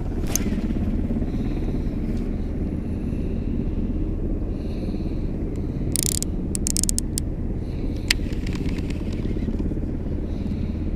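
A steady low rumble, with a short run of sharp clicks about six to seven seconds in and a single click about eight seconds in.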